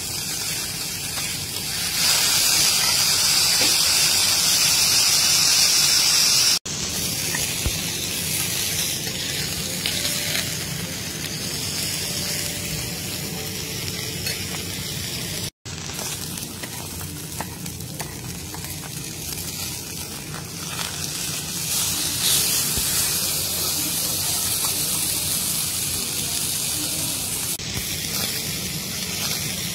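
Beef steaks sizzling as they sear in their fat on a flat steel teppanyaki griddle. The sizzle is louder for a few seconds near the start and drops out briefly twice.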